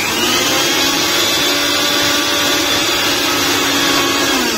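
Electric mixer grinder running at full speed, grinding rhododendron flowers with dried chilli, salt and mint into chutney: a loud, steady motor whine that begins to wind down at the very end as it is switched off.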